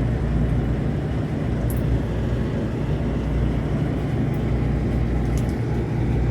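Cooling tower running: a steady low rumble from its fan and motor, with a few faint ticks.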